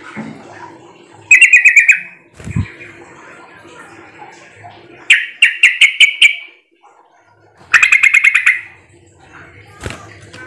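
Yellow-vented bulbul (trucukan) singing three short bursts of rapid bubbling notes, each about a second long. There is a low thump about two and a half seconds in.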